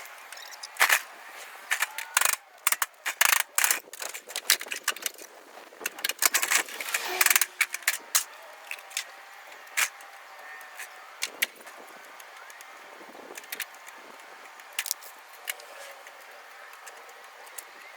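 Quick clatter of clicks and metal knocks from a microwave oven being taken apart, dense and loud for the first eight seconds, then sparser.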